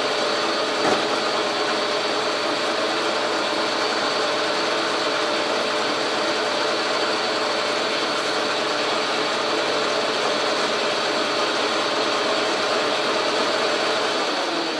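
Logan metal lathe running under power feed, turning down a 2-inch aluminum rod: a steady mechanical whir of motor and gears carrying several steady whining tones. A single click about a second in.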